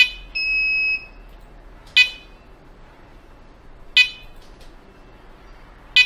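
Wireless indoor alarm siren chirping: short sharp beeps evenly spaced about two seconds apart, signalling that the alarm system is armed in away mode. A steadier beep of about half a second follows just after the first chirp.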